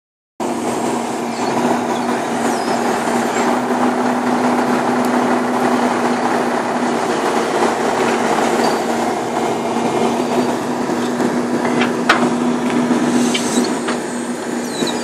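Excavator-mounted piling rig running steadily, its engine and hydraulics giving a constant hum, with no hammer blows yet; a sharp knock or two sound near the end.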